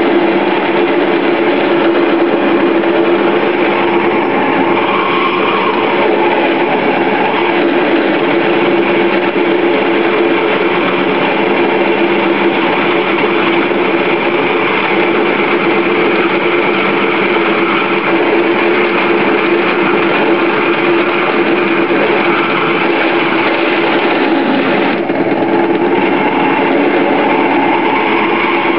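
Small metal lathe running steadily while a long jobber-length drill bit in the tailstock chuck is fed by hand into the spinning workpiece, drilling out a replacement bearing.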